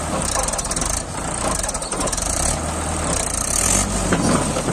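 Mahindra 575 DI tractor's four-cylinder diesel engine running hard under heavy load as it strains to pull a loaded trolley stuck in sand, getting louder near the end.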